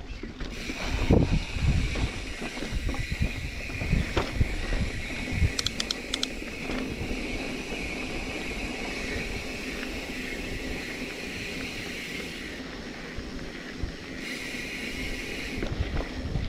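Mountain bike descending a rough dirt trail, heard from a helmet-mounted camera: wind rushing over the microphone and the rumble and rattle of tyres and frame on the ground. There are heavy thumps over bumps in the first couple of seconds, and a steady high buzz runs through most of it, dropping out briefly near the end.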